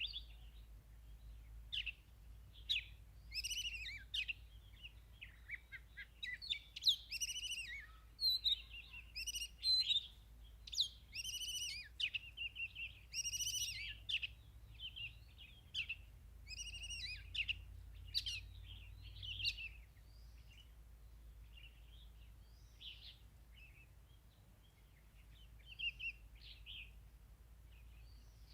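Oriental magpie-robin singing: a run of varied, clear whistled notes and chirped phrases, thick and busy at first, then sparser and fainter from about two-thirds of the way through.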